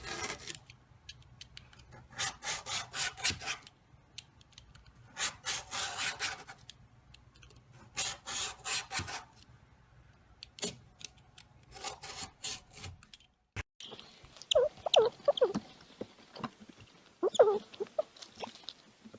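Repeated bursts of rasping, scraping strokes, each burst lasting about a second, like sawing or filing, with pauses between them. About fourteen seconds in, the sound changes to short, pitched animal cries and clicks.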